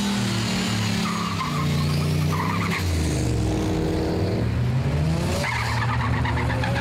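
Racing car engines running and revving, their pitch stepping up and down, with tyre squeal.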